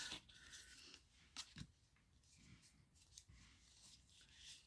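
Near silence with a few faint, brief clicks and rustles of tarot cards being handled, about a second and a half in and again around three seconds.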